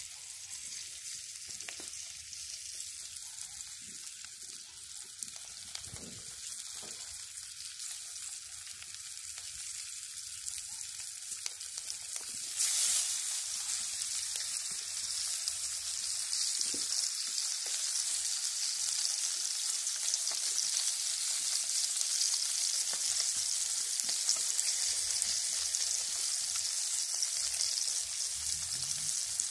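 Flour-dusted crucian carp frying in hot oil in a frying pan, a steady sizzle that jumps louder about halfway through as a second fish goes into the oil.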